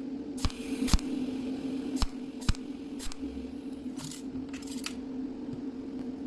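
Cold welding repair machine humming steadily, with sharp metallic clicks and snaps at irregular intervals: several in the first half and a short cluster about four seconds in.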